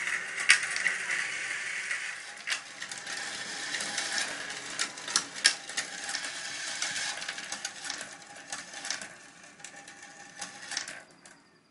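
Homemade marble machine running: marbles clicking and rattling along bent-wire tracks and coil spirals in a dense, continuous clatter. The clicks thin out and grow quieter over the last few seconds.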